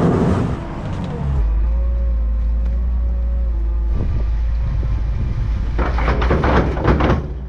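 Wheel loader engine running steadily with a steady whine above it. From about six seconds in, silage pours out of the tipped bucket into the feeder hopper with a crackling rush.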